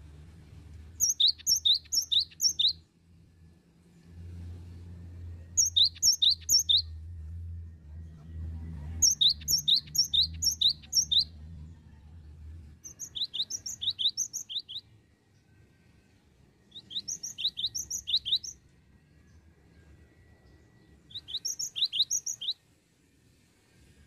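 Cinereous tit (gelatik batu) singing in six bursts of rapid, high repeated notes, each a second or two long, with short pauses between them. A low steady hum runs underneath and stops about halfway through.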